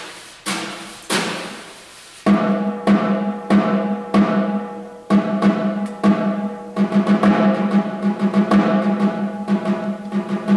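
Snare drum played with sticks as a solo: two single strokes left to ring, then from about two seconds in a fast, busy passage of strokes and accents.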